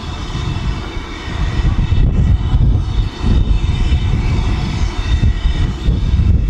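Strong gusty wind buffeting the microphone: an uneven low rumble that swells about a second and a half in. Beneath it is a faint steady hiss.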